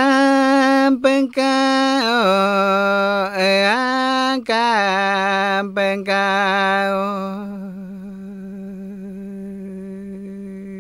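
A man singing an icaro, a Shipibo shamanic healing song, solo and unaccompanied. He holds long notes with a wavering, warbling ornament and steps down to a lower note about two seconds in. From about seven seconds the voice turns softer and duller, close to humming.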